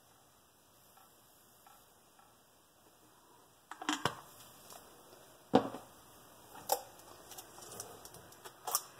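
Faint and even for the first few seconds. Then a series of sharp knocks and clicks as plastic paint bottles and a paint jar are set down and handled on the work table; the loudest knock comes about five and a half seconds in.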